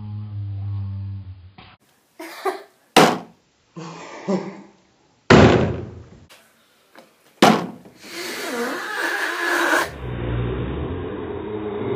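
Plastic water bottle landing on a hard surface: several separate short knocks and thuds, the loudest about five seconds in. A steady low hum runs under the first second and comes back near the end.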